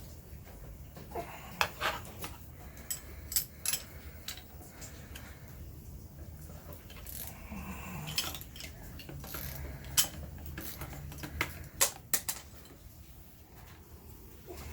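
Metal hand tools and engine parts clinking and clanking, with sharp, irregular clinks while bolts and parts come off the front of a 6.0 LS V8.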